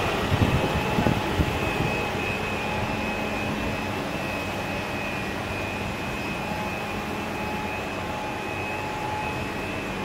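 Roller-cleaning robot running on the ceramic rollers of a glass tempering furnace: a steady mechanical hum with a thin high motor whine from its rotating polishing head and drive. A few knocks in the first second or so.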